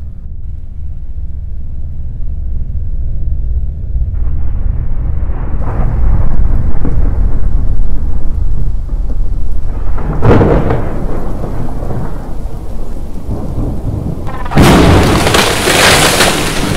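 Thunderstorm: a steady low rumble of thunder under rain that grows heavier a few seconds in. A sharp thunderclap sounds about ten seconds in, and a much louder crash of thunder comes near the end.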